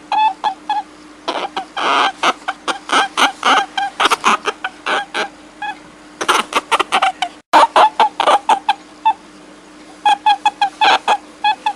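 Animal calls: rapid runs of short, high, clucking calls, several a second, broken by short pauses, over a steady low hum. The sound cuts out completely for an instant about seven and a half seconds in.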